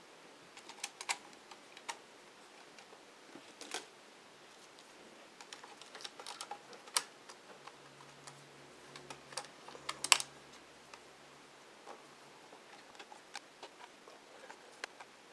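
Plastic access covers and the hard drive on the underside of a Dell Inspiron 1420 laptop being fitted and pressed into place: scattered sharp plastic clicks and taps, the loudest about ten seconds in.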